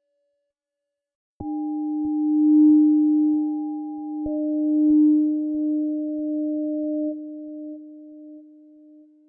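Sparse electronic credits music of sustained pure tones: after a moment of near silence, a low tone comes in with a click about a second and a half in, joined by fainter higher notes, one of which changes about four seconds in. The tones swell and then slowly fade.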